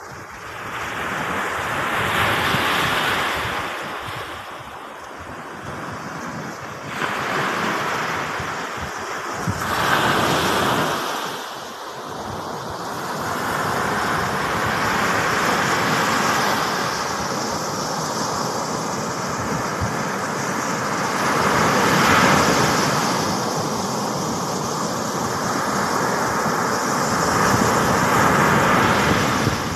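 Sea waves breaking and washing up a sandy beach, the surf swelling and fading every few seconds.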